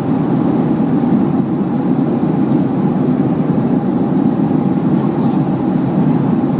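Steady cabin noise inside a jet airliner in flight: the engines and the rush of air along the fuselage, a loud, even low rumble with a faint steady hum above it.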